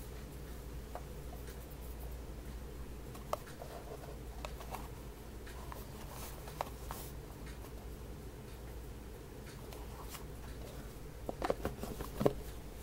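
A small black gift box being handled: faint rubbing and scattered light taps over a steady low hum, with a cluster of louder clicks and knocks near the end.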